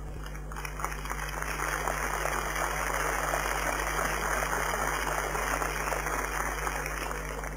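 Crowd applauding: a dense patter of many hands clapping that sets in about a second in and dies away near the end.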